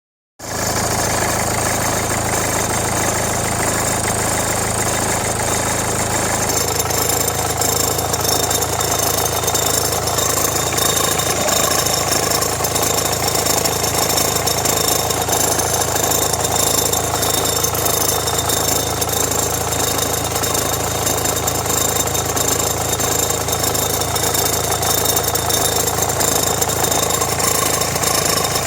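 Renault Megane 1.5 dCi four-cylinder diesel engine idling with a steady fine rattle from the alternator belt drive, the noise that comes with electrical load (radio, rear window heater, blower). The belt and tensioner are already new, and the owner suspects the alternator or the air-conditioning compressor. The sound shifts slightly about six seconds in.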